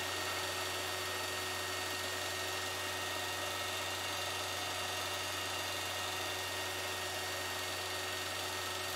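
Steady low buzzing hum with an even hiss, unchanging throughout: background noise of the narration recording, with no sound from the silent film itself.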